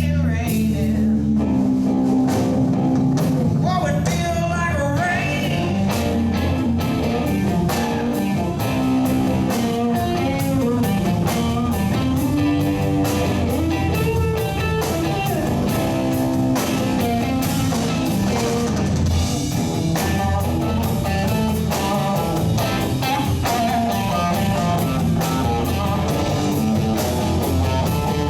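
Live blues band music: guitar lines over a drum kit with a steady beat.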